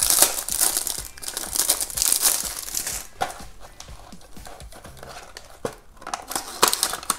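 Clear plastic cellophane wrapper crinkling and tearing as it is pulled off a small cardboard toy box. After about three seconds this gives way to quieter scratching and a few sharp clicks as a fingernail pries at the box's cardboard flap.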